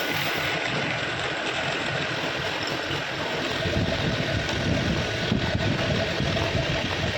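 A woodworking power tool's electric motor running steadily, with a little more low rumble from about halfway through.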